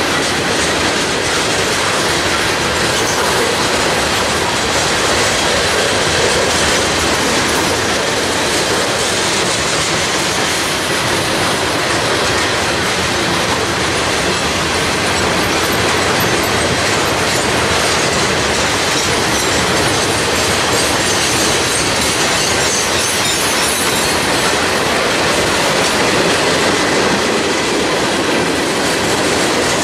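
Mixed freight train's cars rolling past close by: steel wheels running over the rails in a steady, loud wash of noise.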